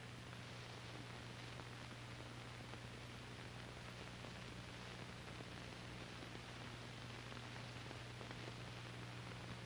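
Steady hiss and a low mains hum from an old film soundtrack's noise floor, with no machine or impact sounds.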